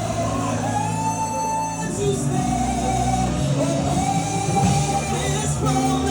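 Live gospel worship music: a band with bass and guitar playing under sung voices holding long notes, in a large hall.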